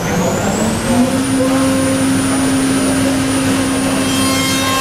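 Morbidelli CNC machining centre's router spindle winding up to speed, a rising whine that levels off about a second in and then runs steadily over an even rushing noise. A few further steady tones join near the end.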